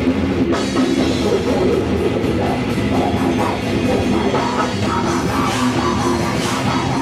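Live rock band playing loud, the drum kit driving it, with cymbal crashes about five, five and a half and six and a half seconds in.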